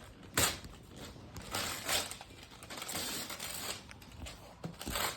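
Gift wrapping paper being torn and crumpled off a present, in several short rustling bursts.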